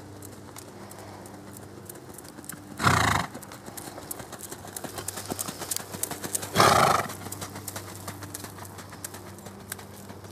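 Hooves of a Tennessee Walking Horse beating a quick, even rhythm on a gravel arena under a rider, louder as the horse passes close about six seconds in. The horse gives two short, loud snorts, about three seconds in and again about three and a half seconds later.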